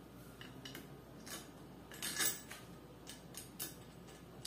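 Light metallic clicks and clinks of small compressor parts being handled, several scattered taps with the loudest cluster about two seconds in.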